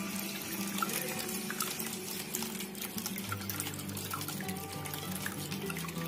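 Small cement tabletop waterfall fountain running: water trickling and splashing steadily from its pots and spouts into the basin. Soft instrumental music plays over it.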